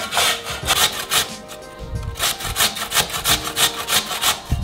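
Raw potato being coarsely grated by hand on a metal grater: a run of rasping strokes, about three a second, over background music.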